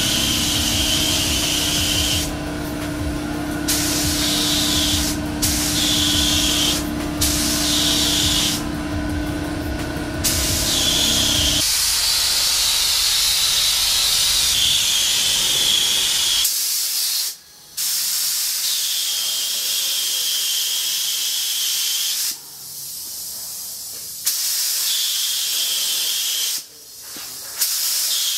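Compressed-air gravity-feed spray gun hissing as it sprays primer, in stretches of a few seconds with short breaks between them. A steady low hum runs underneath for about the first twelve seconds, then stops.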